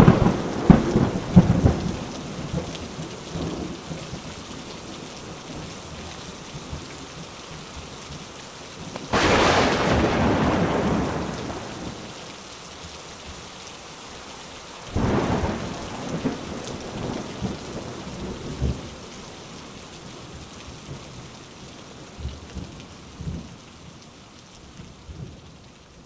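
Heavy rain falling steadily through a thunderstorm. Thunder rumbles in the first couple of seconds, a loud clap comes about nine seconds in and rolls on for two or three seconds, and another comes about fifteen seconds in and fades over several seconds.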